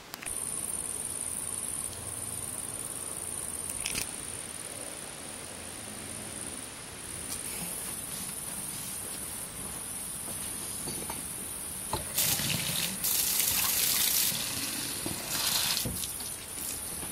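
Outdoor water tap running into a plastic bottle as it is filled, the water gushing loudest in two spells in the second half.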